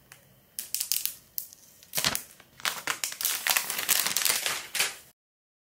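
Clear plastic shrink wrap being peeled off a smartphone box and crumpled in the hand, crinkling in quick irregular bursts. The sound cuts off suddenly near the end.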